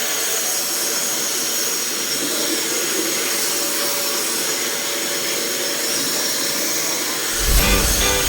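Steady rushing hiss at an even level. Near the end a deep bass hit lands and plucked guitar music comes in.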